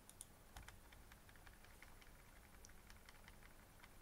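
Near silence with faint, irregular clicks of a computer mouse and keyboard being worked.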